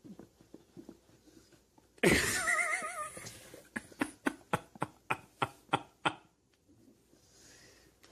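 A plastic tub stuck over a dog's head scuffing and knocking as the dog moves. There is a loud scuffle about two seconds in with a short high warbling sound, then a quick run of about ten sharp hollow knocks, some four a second.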